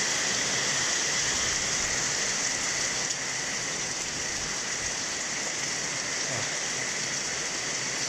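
Heavy rain pouring down steadily from a thunderstorm: an even, unbroken hiss of rain on the ground and foliage.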